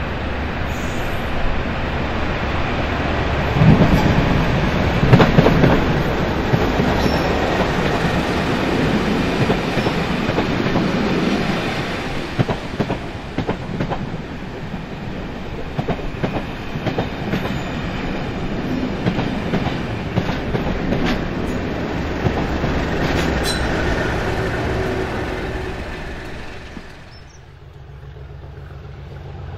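Pair of Class 37 diesel locomotives, English Electric V12 engines running, passing with a train while the wheels click over the rail joints. The sound is loudest a few seconds in and dies away near the end.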